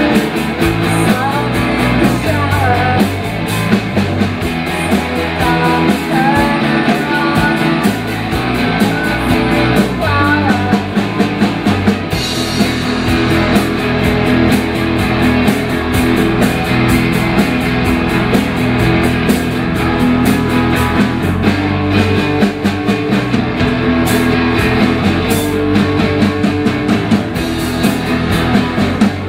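Live rock band playing amplified electric guitars over a drum kit. A wavering melody line rides on top for the first ten seconds or so, then the band settles into a steady driving rhythm.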